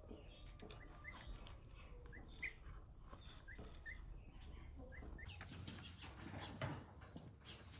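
Faint short, high chirps from a small animal, repeating about twice a second, then a stretch of crackly rustling noise from about five seconds in.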